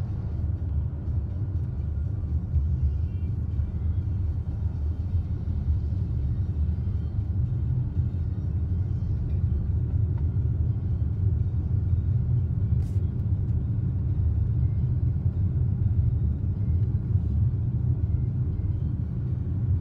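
Steady low rumble of a car's engine and tyres heard from inside the cabin while driving, with a single brief click about thirteen seconds in.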